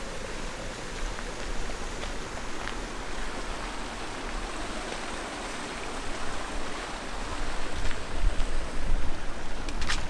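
Steady outdoor background noise with no single clear source, with a few faint clicks. A low rumble of wind buffeting the microphone builds in the last few seconds.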